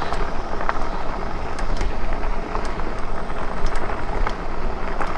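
Lectric e-bike riding over a bumpy unpaved track: a steady rumble of tyre noise and wind on the microphone, with scattered small clicks and rattles.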